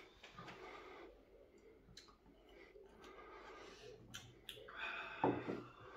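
Two men quietly sipping whisky from glass tumblers: a few faint clicks of the glasses and soft breathing, with a short exhale about five seconds in.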